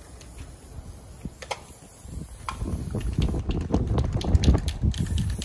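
Wind buffeting the microphone, getting much stronger about two seconds in, with scattered sharp clicks and taps on top.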